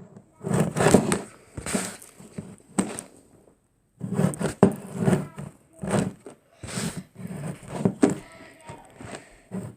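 A string of irregular close handling knocks, bumps and rustles, about a dozen short bursts.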